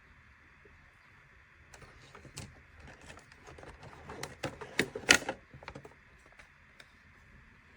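Small plastic toy pieces clicking and tapping as they are handled, a quick irregular run of clicks that builds over a few seconds and is loudest about five seconds in.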